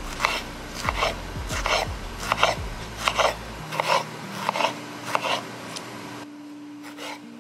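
Serrated kitchen knife slicing tomatoes on a wooden cutting board: repeated cutting strokes against the board, about two a second, easing off near the end.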